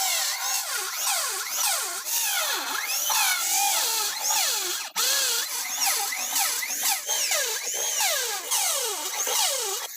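Power tool whining in the wood, its pitch sweeping up and down over and over as the load changes. It breaks off for a moment about five seconds in.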